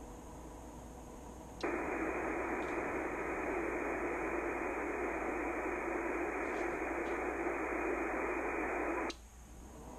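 Icom IC-7300 shortwave transceiver's speaker hissing with 20-meter band static. The hiss switches on abruptly about one and a half seconds in, as the radio drops from transmit to receive between voice-keyer CQ calls. It cuts off just after nine seconds in, as the radio keys up to transmit again.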